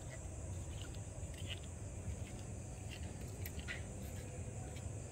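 Night insects, crickets, trilling steadily in a high continuous chorus, over a low rumble of background noise and a few faint scattered ticks.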